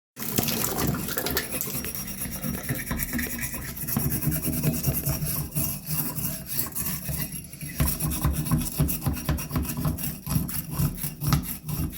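Rapid, repeated scraping and rubbing inside a Delta Monitor shower valve body, cleaning out calcium deposits that would stop a new cartridge from seating.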